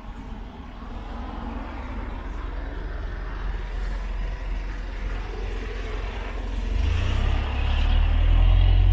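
Road traffic passing on a city street, growing louder, with a large vehicle's deep engine rumble coming in close about seven seconds in and loudest near the end.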